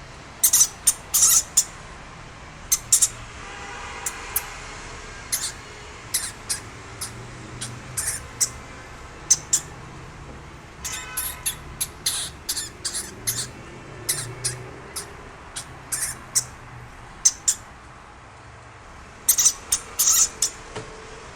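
Hamster squeaking: many short, very high squeaks and clicks in irregular clusters, with a couple of longer, lower squeals among them.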